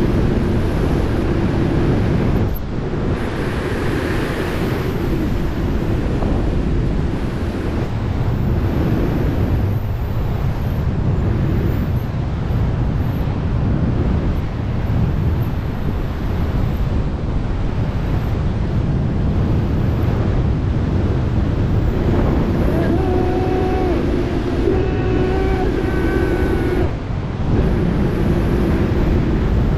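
Loud, steady wind rush over a helmet-mounted camera's microphone during wingsuit flight, with brief dips in level. From about two-thirds of the way through, a pitched tone with overtones sounds over the wind for a few seconds.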